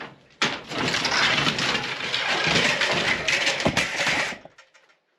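Demolition debris crashing down: a dense clattering cascade of falling rubble and timber, full of sharp knocks. It lasts about four seconds and then stops suddenly.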